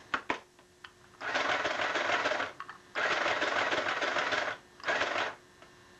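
Small portable sewing machine running in three short bursts, the second the longest and the last a brief one, each with a steady motor hum under the clatter of the needle mechanism.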